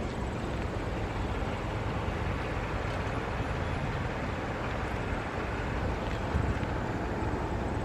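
Steady low rushing noise, with a brief thump about six and a half seconds in.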